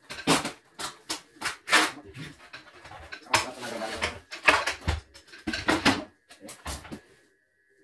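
Hands handling a partly dismantled embroidery machine on a workbench: irregular knocks, bumps and clatter as it is moved and worked on, with a longer scraping stretch about halfway through.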